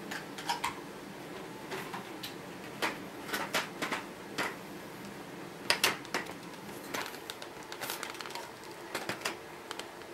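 Irregular plastic clicks and knocks as a Dyson V6 stick vacuum's long wand is pushed and twisted against a V6 Triggerpro handheld's inlet, with a sharp double knock about halfway through. The wand will not lock in because the two fittings differ.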